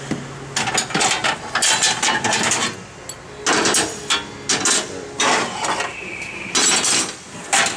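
Sheet-metal sliding guard doors on a Tsugami BS-20II CNC Swiss lathe's enclosure being slid and handled, making a series of irregular metallic clattering scrapes and knocks in short bursts. A brief high steady tone sounds about three-quarters of the way through.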